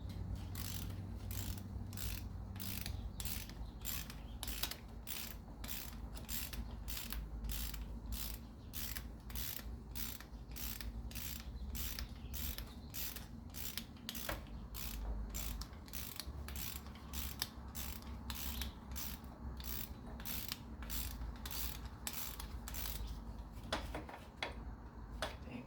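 Hand ratchet wrench clicking in steady back-and-forth strokes, about two a second, as a 12 mm bolt is backed out of the VG33E engine's belt tensioner bracket, with a couple of short pauses and a few knocks of the tool near the end.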